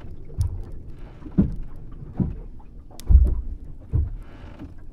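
Ambience of a wooden rowboat on water: soft low knocks and slaps against the hull about once a second, with a few light clicks and a short hiss near the end.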